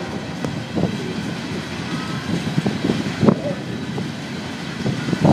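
Freight train of CSX coal hopper cars rolling past: a steady rumble of steel wheels on rail, with a few sharp clanks from the cars.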